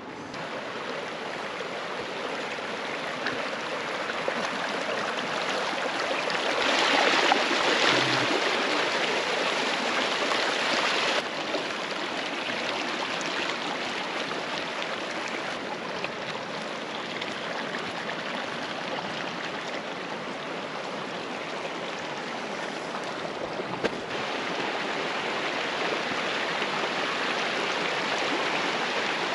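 Flash-flood water rushing in a desert wash: a steady rushing noise. It swells louder for about four seconds a quarter of the way in, then drops suddenly.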